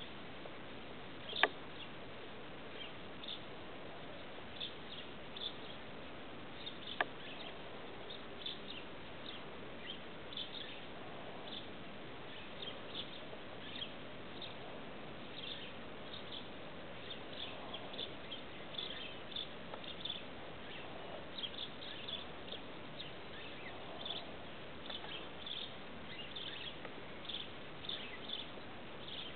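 Outdoor ambience: a steady faint hiss with frequent short, high chirps, and two sharp clicks, one about a second and a half in and one about seven seconds in.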